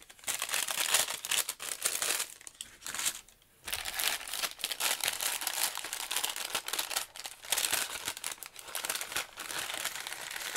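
A striped paper gift bag crinkling as it is handled, folded and opened by hand, with a short pause about three seconds in.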